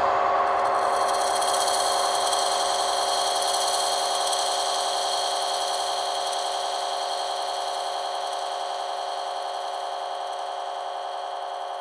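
A sustained, processed sound-design drone of many steady tones held together, slowly fading out, its faint low rumble dropping away about two thirds of the way through.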